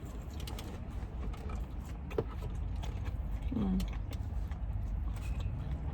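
Light crinkling and clicking of food packaging as a BBQ sauce cup is opened and handled, over the steady low rumble inside a car, with a sharper click about two seconds in and a brief hummed 'mm' about three and a half seconds in.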